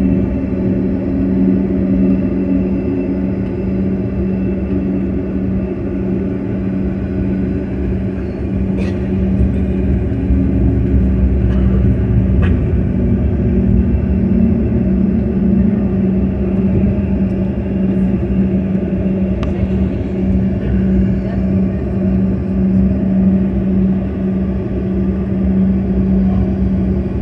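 Steady cabin drone inside a Mitsubishi CRJ-200 regional jet taxiing, from its two rear-mounted GE CF34 turbofans at taxi power, with a low rumble underneath and a few faint clicks.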